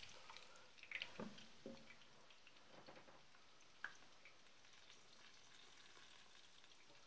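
Chicken cutlets frying faintly in a pan, with scattered light crackles. About a second in, a glass pan lid is set down on the pan with a couple of low knocks, and there is one sharp click near four seconds.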